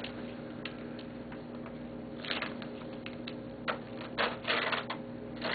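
Tape being peeled off the wooden parts of a player piano stack: short ripping sounds, the longest about four seconds in, among light clicks and taps.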